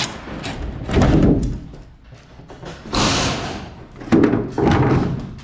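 A few dull thumps and knocks, the loudest about a second in and again about four seconds in, with a short rushing noise about three seconds in.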